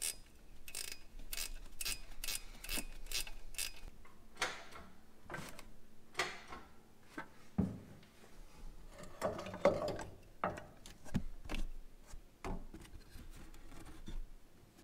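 Ratchet wrench clicking in quick, even strokes for the first few seconds as a bolt is turned. Scattered metallic clunks and rustles of tools and parts being handled follow.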